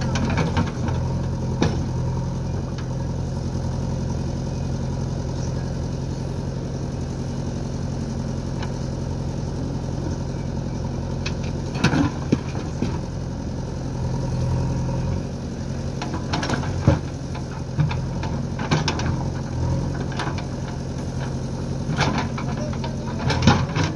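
Diesel engines of a JCB 3DX backhoe loader and a tractor running steadily. Rocks thud and clatter into the steel tractor trolley as the bucket dumps, about halfway through and again several times near the end.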